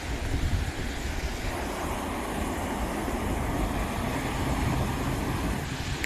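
Wind buffeting the phone's microphone with a low rumble over the steady wash of ocean surf breaking on the shore, a wave washing in more strongly from about a second and a half in.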